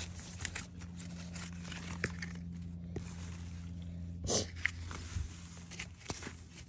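Small garden digging tool and hand working through dry, clumpy soil to dig up potatoes: scattered crunching and scraping, with one louder scrape about four seconds in. A steady low hum runs underneath and stops shortly after the loud scrape.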